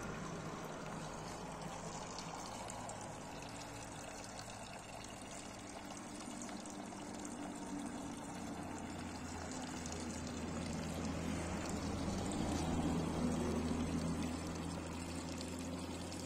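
Thin stream of water from a stone fountain's metal spout splashing steadily into the basin below. A low steady hum comes in about halfway and swells a little before easing off.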